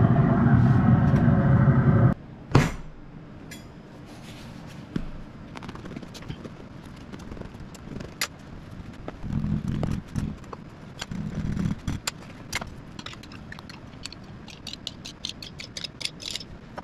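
A loud steady din cuts off about two seconds in. Then come quiet food-prep handling sounds: taps, scrapes and soft thuds as loaves of French bread are handled on a wooden cutting board and pizza sauce is spooned onto them, ending in a quick run of light clicks.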